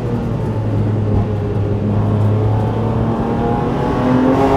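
BMW M4 GT4's twin-turbo straight-six running at a steady engine speed, heard from inside the cockpit. About three seconds in the note eases off, and it rises again near the end.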